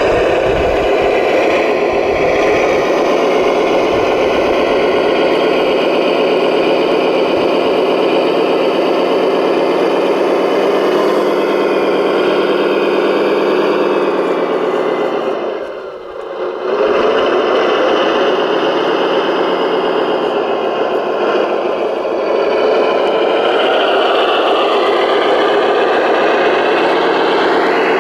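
Radio-controlled construction models running: a steady engine-like drone with whining motor and gear tones that shift in pitch. The sound dips briefly about halfway through, then comes back.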